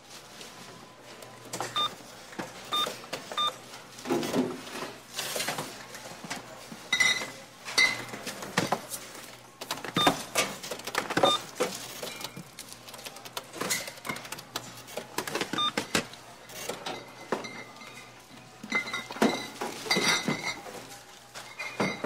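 Supermarket checkout counter ambience: an electronic cash register gives short beeps, three in quick succession about two seconds in and more later, amid the clatter and rustle of goods and bags being handled at the counter.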